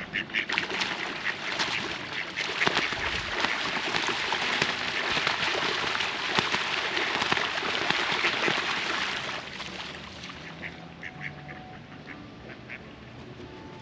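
Ducks in a scuffle, quacking loudly amid a dense commotion for about nine seconds, then settling into quieter, scattered quacks.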